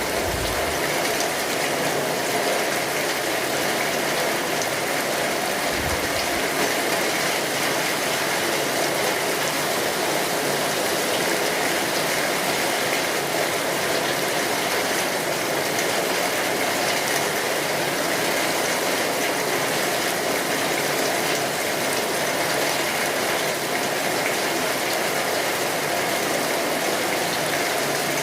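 Steady rain drumming on a tin roof, a dense even patter that holds without a break.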